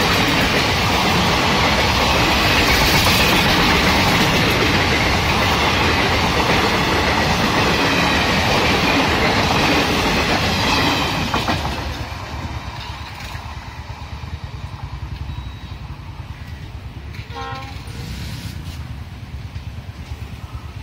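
Indian Railways ICF passenger coaches rushing past at speed: a loud, steady rush of steel wheels on rail joints with clickety-clack, which drops away suddenly about eleven seconds in as the last coach passes. A brief train horn sounds faintly once near the end.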